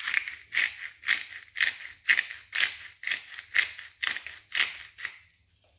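Hand pepper grinder being twisted to crack black pepper, a dry grinding rasp with each turn, about two a second, stopping about five seconds in.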